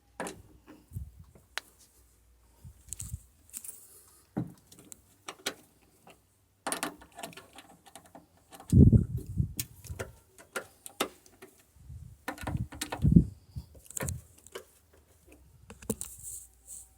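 Metal tool clicks and clinks with a few dull knocks, from a ratchet and Torx T30 socket undoing the bolts that hold a car door's lock assembly.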